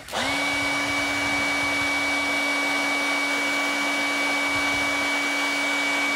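Handheld hot-air blower running steadily, a motor whine over a rush of air, heating action-figure plastic to soften it so the parts can be popped off. It cuts out and restarts right at the start, and its whine falls as it spins down at the very end.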